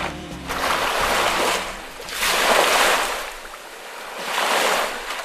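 Sea waves washing onto the shore, the surf swelling and falling back three times.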